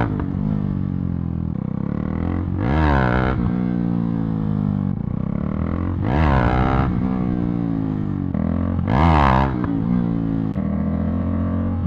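KTM RC390's single-cylinder engine revving hard three times, about three seconds apart, each surge rising and dropping back: the throttle blipped for wheelie attempts.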